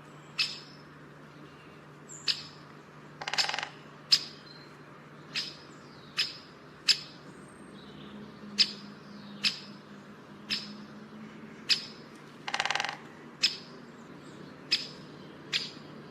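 Young white-eye chick calling: short sharp chirps about once a second, with two longer, harsher calls about three and a half and twelve and a half seconds in. The calls fit a hungry chick begging while it is hand-fed.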